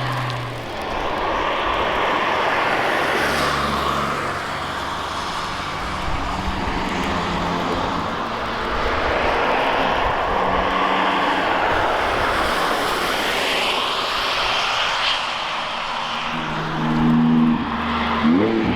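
Steady rushing noise with car engines passing several times, the loudest pass near the end.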